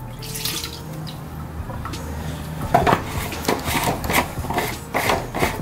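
Brake fluid poured from a bottle into the plastic tank of a hand-pump power brake bleeder, a soft steady pour. From about three seconds in, the plastic pump cap clicks and scrapes in a run of short knocks as it is fitted and screwed onto the tank.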